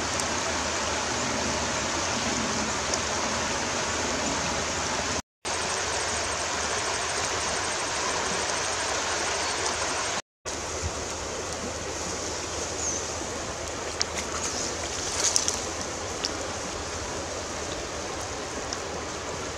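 Steady rushing of running water, like a stream, which cuts out briefly twice. A few light clicks and small splashes come about three-quarters of the way in.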